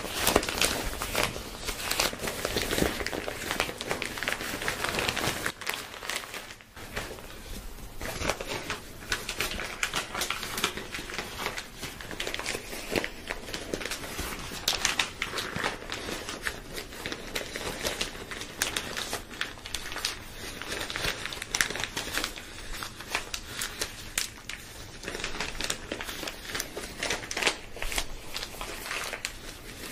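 Black cotton hoodie fabric rubbing and rustling right against the microphone: a dense, crinkly scratching made of many quick crackles, easing briefly about six seconds in.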